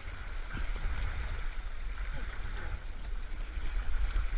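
Fast, shallow mountain river current running and splashing around a wader's legs: a steady rushing of water with a heavy low rumble.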